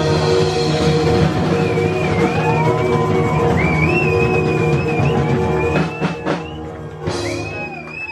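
Live acoustic rock band holding a final chord on guitars and drums, with a thin wavering whistle above it. About six seconds in the chord drops away, and a few sharp hits sound near the end.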